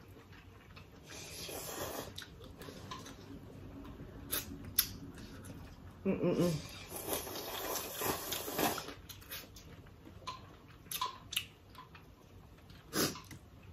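Close-up eating sounds of two people having spicy ramen and seafood: wet smacks and clicks of chewing and finger-licking, and a slurp of ramen noodles about seven seconds in. There is a brief murmur from one eater just before the slurp.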